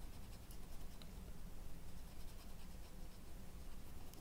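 Felt-tip pen marking paper in short strokes and dabs while drawing small dots for eyes: faint, scratchy little taps at irregular moments.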